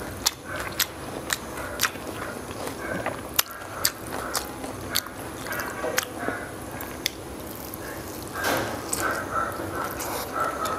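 Close-miked crunching and chewing of crispy bánh xèo (Vietnamese rice-flour pancake): sharp crackles every half second or so, with a longer, noisier burst about eight and a half seconds in.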